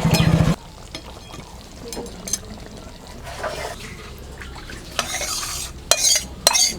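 Metal spoon scraping and clinking against a pan and serving dish while cooked aloo posto is dished up, with sharp clinks coming thick near the end. A loud steady hum cuts off suddenly about half a second in.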